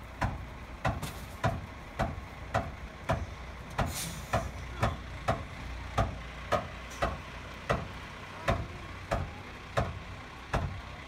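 Rear-loading garbage truck running with a low engine rumble. A regular sharp click sounds about twice a second, and a short air hiss comes about four seconds in.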